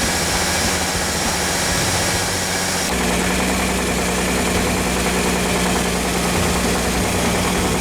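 Holden Commodore's engine idling steadily, with an abrupt change in its sound about three seconds in.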